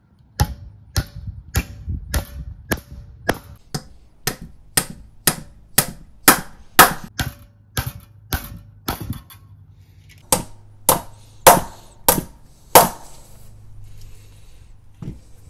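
Hammer blows on steel, a steady run of about two strikes a second, then after a short pause five harder, louder blows. Typical of nailing or hammering punched steel flat bar flat against a wooden anvil stand.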